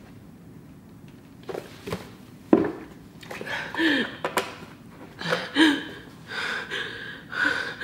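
A woman breathing hard and making distressed, wordless whimpering sounds from the burn of extremely spicy noodles. A sharp knock comes about two and a half seconds in.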